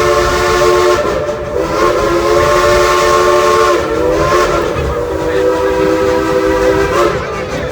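Chime whistle of a 1938 coal-fired steam locomotive blowing three long blasts, with short breaks about one and four seconds in, over a hiss of steam.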